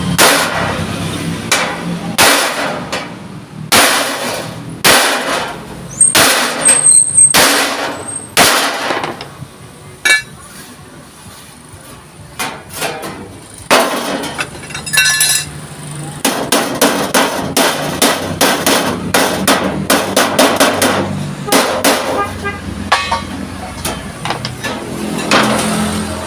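A hammer striking thick steel plate many times: spaced blows at first, a short lull, then a fast run of strikes.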